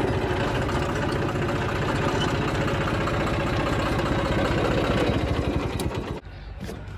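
Diesel engine of a John Deere tractor running steadily with a fast even beat as it drives across a field. About six seconds in the sound drops suddenly and becomes quieter.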